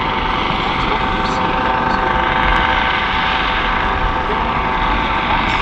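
US Coast Guard MH-65 Dolphin helicopter in flight: a steady high whine over constant rotor noise.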